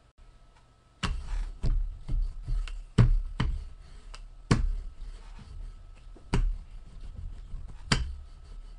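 Irregular sharp taps and knocks with dull low thumps from hands handling a plate and slices of bread, starting about a second in and coming one or two a second, the loudest about three seconds in.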